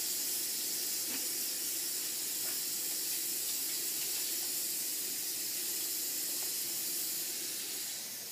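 Kitchen faucet running steadily, the water stream splashing into the sink and onto a wet cat's fur, then dying away near the end as the water is shut off, which the owner credits to the cat.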